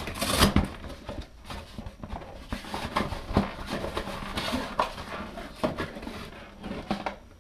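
Cardboard box being handled and tilted: rustling and scraping with scattered light knocks, louder just after the start.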